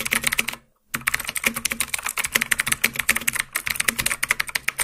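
Fast typing on a computer keyboard: a quick run of key clicks, a brief break just before a second in, then continuous rapid tapping.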